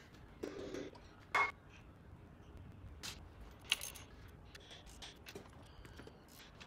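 Hand tools working on the bolts of a bare LS V8 engine block: scattered metal clicks and clinks of a socket and ratchet, with a sharp ringing clink about a second and a half in and another near four seconds.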